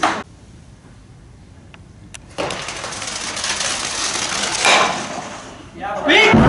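A stock with a summer running sole sliding over the paved court: a grinding hiss that sets in suddenly about two and a half seconds in and grows louder over about three seconds before dying away. Spectators break into cheering near the end.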